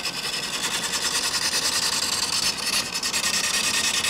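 Carbide turning tool cutting into a spinning mesquite log on a wood lathe: a steady, harsh scraping with a fast, even flutter, as the slightly wobbling blank is trued round.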